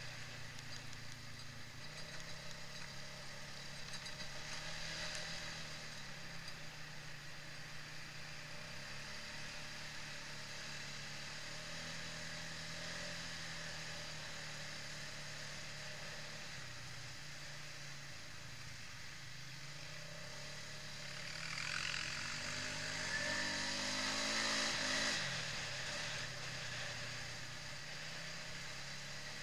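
Quad bike (ATV) engine running along a dirt trail, its pitch rising and falling with the throttle, over a steady rush of wind and trail noise. A little over twenty seconds in, the engine revs up, rising in pitch and growing louder for a few seconds before easing off.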